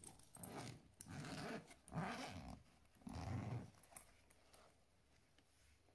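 A dog calling faintly four times in about four seconds: a short call, then three longer ones of about half a second each.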